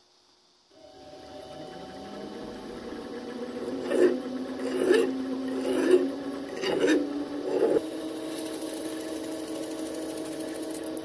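Central Machinery 7x10 mini lathe motor starting about a second in and winding up to a steady run. A small file is stroked against the spinning steel firing pin tip five times, about a second apart, squaring up the end, and then abrasive paper hisses against it near the end as the tip is polished.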